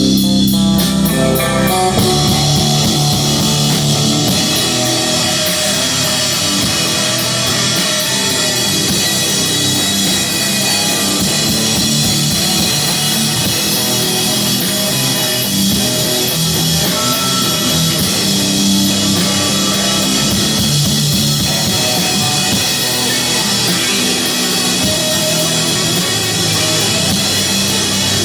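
Live rock band playing loud and steady: electric guitar and bass over a drum kit, with cymbals washing over the top.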